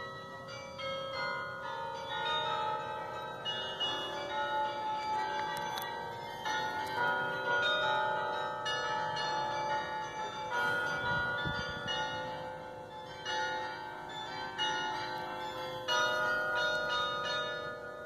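Church tower carillon playing a tune: bells of different pitches struck one after another, each note ringing on over the next.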